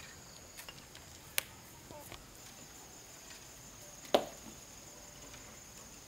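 Two sharp knocks, one about a second and a half in and a louder one about four seconds in, with a few fainter ticks between. Under them runs a steady high insect drone.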